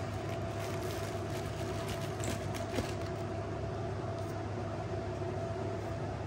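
A steady mechanical hum carrying a constant mid-pitched tone, with a few light clicks and a small knock near the middle from speakers and packing being handled.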